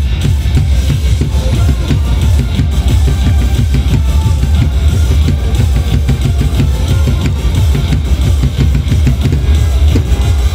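Loud cheer-dance music with a heavy, pounding drum beat and deep bass.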